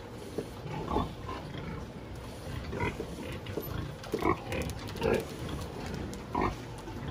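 Sows grunting in their crates: short grunts every second or so over a steady low background noise.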